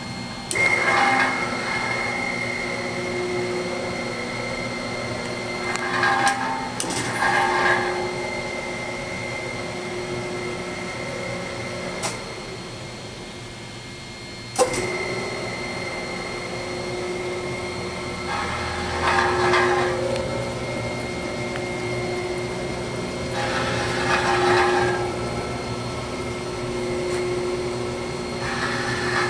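Kemper single-speed spiral mixer running empty: a motor hum with a steady whine as the spiral hook and stainless steel bowl turn, swelling louder now and then. About halfway through it cuts out after a click while the safety guard is raised, then starts again with a sharp clack a couple of seconds later.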